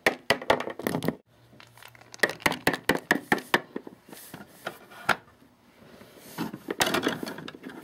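Quick clusters of light taps and clicks from small plastic toy figures being handled and tapped against a hard surface, with a short rustle near the end.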